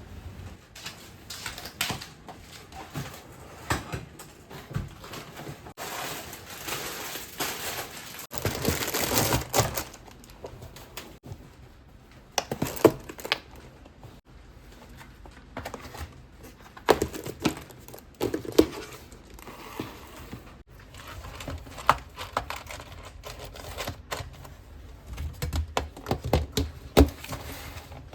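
Objects being handled and unpacked: packaging crinkling and rustling, with scattered clicks and knocks of things being set down.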